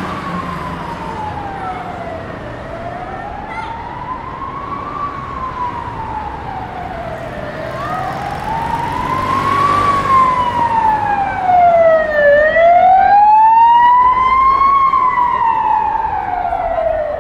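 Emergency vehicle siren sounding a slow wail, its pitch rising and falling about once every five seconds, over street traffic noise. It grows louder, is loudest about two-thirds of the way through, then eases off slightly as the vehicle passes.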